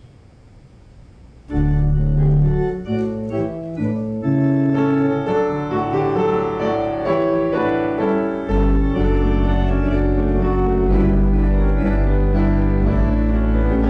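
A keyboard instrument starts playing held chords about a second and a half in, after a quiet stretch, with a deep bass line joining past the middle.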